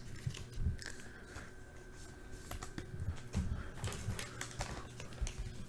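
Faint, irregular clicking and soft tapping, thicker in the second half.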